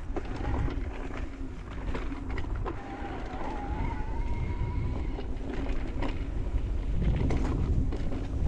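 Electric mountain bike being ridden down a dirt trail: wind buffeting and tyre rumble, with chain and frame rattling and knocking over bumps.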